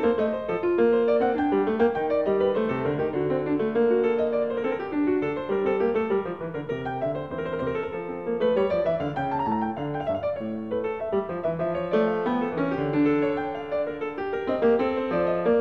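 Instrumental piano music, notes moving continuously, with a run of notes climbing and falling back about halfway through.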